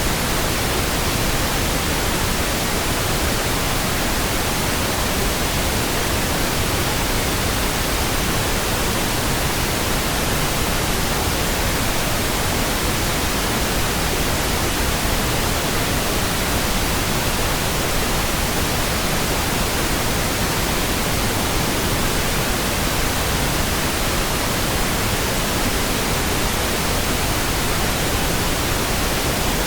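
Steady synthetic pink noise: an even, unchanging hiss across the whole range, without breaks or sudden sounds.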